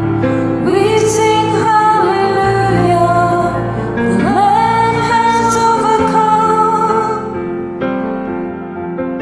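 A woman singing a slow Christian worship song over keyboard accompaniment, sliding up into a long held note about four seconds in. Near the end the voice stops and the keyboard carries on, softer.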